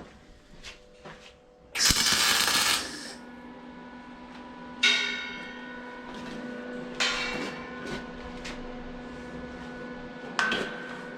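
A sharp hissing crackle lasting about a second, two seconds in: a tack weld on the 12 mm round steel bar frame. Then three sharp metallic clangs, a few seconds apart, as the steel bar is struck, each ringing on and slowly dying away.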